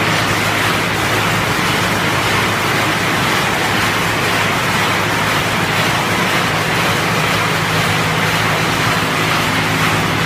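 Cashew kernel color-sorting line running: conveyors and vibrating feeders carrying kernels to an optical color sorter, a steady machine hum under a dense, even hiss.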